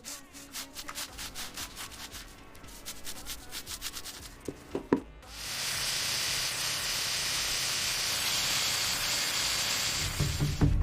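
Quick rubbing or scraping strokes, several a second, then a couple of knocks about halfway. A steady hiss follows and runs for about five seconds.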